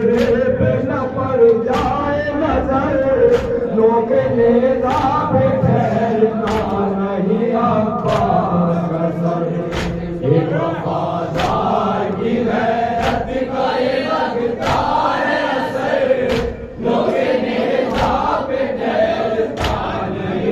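Men chanting an Urdu noha lament together through microphones, the crowd's open-hand chest-beating (matam) landing as sharp slaps about once every second and a half to keep time.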